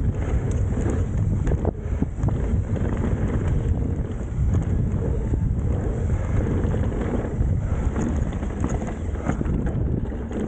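Wind rushing over the microphone as a mountain bike descends an enduro stage at speed, mixed with tyre noise on dirt and scattered knocks and rattles from the bike.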